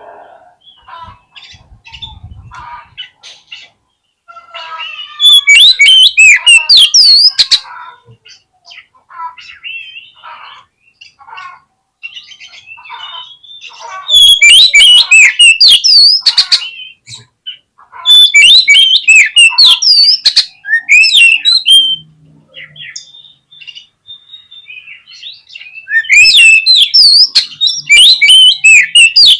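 Oriental magpie-robin (kacer) singing in four loud runs of fast, sweeping whistled and rasping phrases, with softer scattered chirps between the runs.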